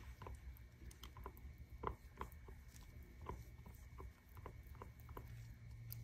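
A silicone spatula stirring cold-process soap batter in a plastic measuring cup: faint, irregular taps and scrapes against the cup's sides.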